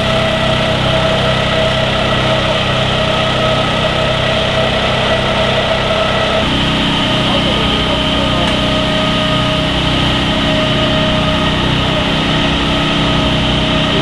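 Engines of parked emergency vehicles idling steadily, with a constant whine over the low running note; the low note changes about halfway through.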